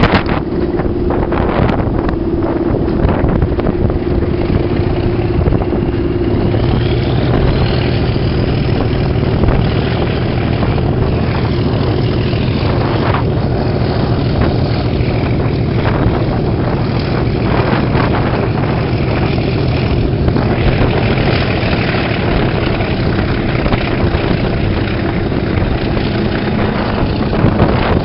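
Class 37 diesel locomotive's English Electric V12 engine working under power on a moving train, with heavy wind buffeting the microphone at the cab window. About a quarter of the way in the engine note strengthens and a rising whine climbs.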